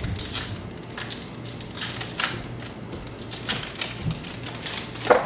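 Baseball card packs and cards being handled: quick irregular crinkling and crackling of wrappers and cards, with a few light taps.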